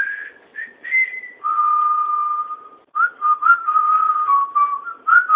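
Whistling of a tune in single pure notes: a few short notes stepping upward, a long held note, then a wavering run of notes around one pitch.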